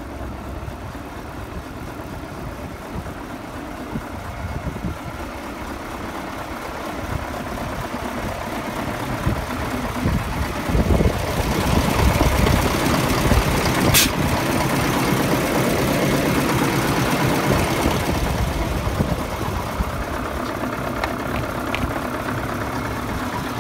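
Magirus Deutz 330-30's air-cooled V8 diesel engine idling steadily. It grows louder toward the middle, where the engine is heard from close beneath, and eases off a little near the end. There is a single sharp click a little past halfway.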